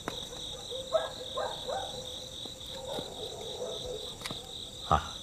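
Crickets chirping steadily in an even, pulsing high trill. A few short soft sounds come about a second in, and one sharp knock near the end.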